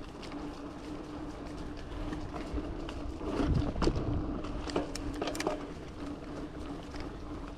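Mountain bike rolling fast down a dirt trail: a steady whirring hum from the wheels, with clattering knocks and rattles as it goes over bumps, loudest about three and a half to four seconds in.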